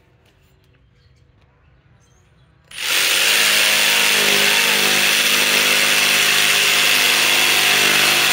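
Ryobi ONE+ PBLJS01 cordless jigsaw starting up about three seconds in and running steadily as its blade cuts across a wooden board.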